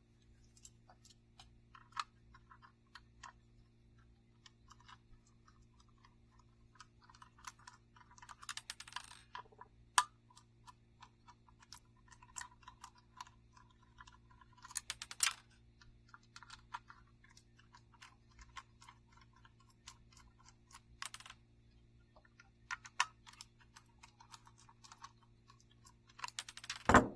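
Hex-bit screwdriver backing out the small screws that hold a hard drive to a printer's circuit board: a long, irregular run of light metallic clicks and ticks with short scraping stretches and a few sharper clicks.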